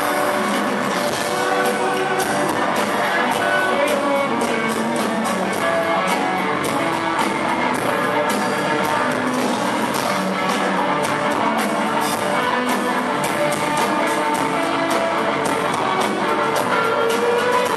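Live band playing a rock song, with electric guitars, bass, keyboards and a drum kit keeping a steady beat.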